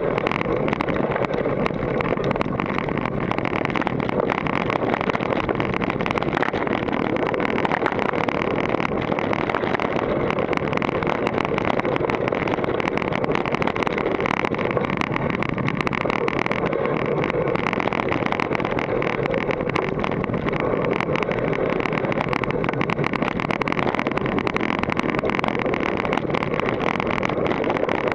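Continuous rattle and clatter of a GT Force Carbon mountain bike running fast down a rough dirt trail, thick with small knocks, mixed with wind rushing over a helmet-mounted action camera's microphone.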